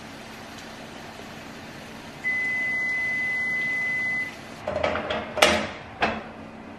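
A kitchen appliance's electronic beep: one steady high tone held for about two seconds, starting about two seconds in. Then several sharp clicks and knocks of handling near the end.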